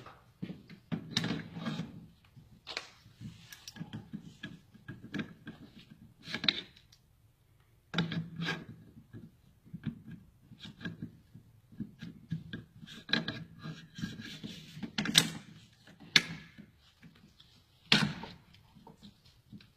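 Handling noise of an M4 rifle and a shoelace being fitted to its bolt carrier group as a makeshift charging handle: irregular rubbing, rustling and small knocks, with a few sharper clicks in the second half.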